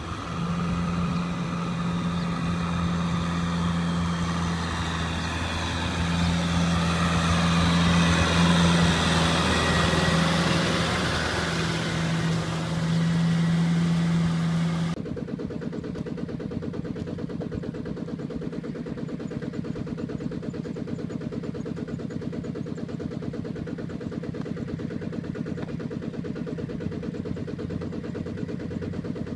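Tractor diesel engine running steadily under load while working a flooded rice paddy. About halfway through, it cuts abruptly to the quieter, steady, rapid chugging of a two-wheel walking tractor's single-cylinder engine.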